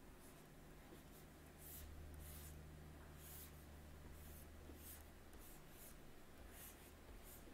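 Faint scratching of a stylus on a drawing tablet, a series of short strokes, over a low steady hum.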